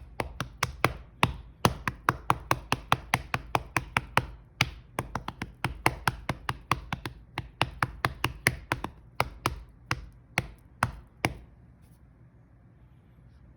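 A hand rapidly patting a Siamese cat's belly, sharp slaps at about four a second, with a short break about nine seconds in. The patting stops about eleven seconds in.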